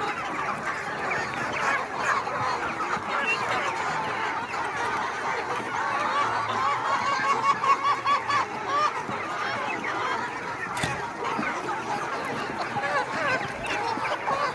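A flock of chickens clucking and calling over one another without a break, busiest about halfway through.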